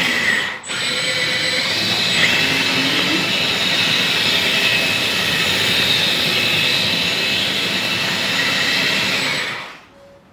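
Hydraulic pump and drive of a 1/12 scale metal JZM Hitachi RC excavator, upgraded with a double pump, running with a steady high whine while the machine tracks. The sound dips briefly just after the start and drops out near the end.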